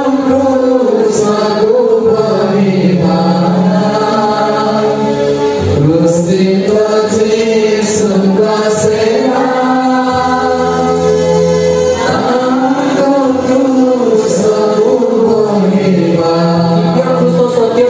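A slow hymn sung by voices in long, gliding phrases over sustained low accompanying notes.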